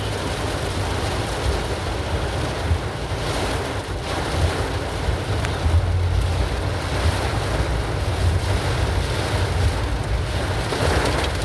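Storm wind gusting hard against the microphone: a continuous rushing noise with heavy, uneven low buffeting.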